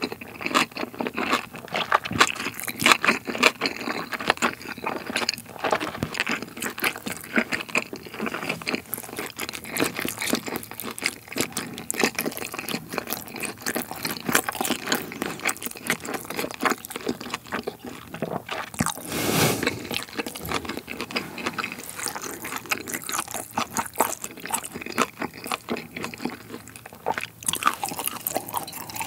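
Close-miked chewing of a big mouthful of grilled pork rib meat wrapped around cold noodles with cucumber: irregular wet crunching and smacking. A brief hissing rush sounds about two-thirds of the way through.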